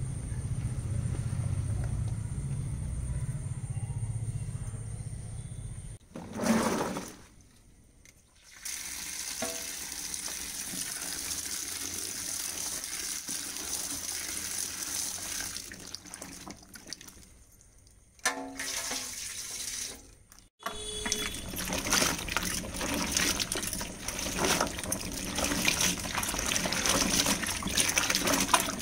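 A low rumble at first, then, after a few short breaks, water pouring over a tub of wild mushrooms while hands swish and splash them about to wash them. The splashing gets busier near the end.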